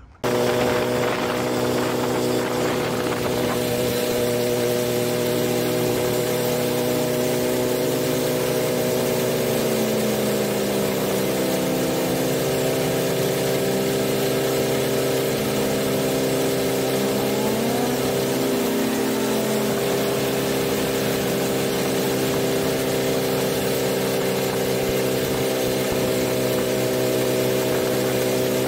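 Motorcycle engine running at a steady pitch, heard from a camera mounted on the bike, over a steady hiss. About halfway through, a second engine note dips and rises for a few seconds.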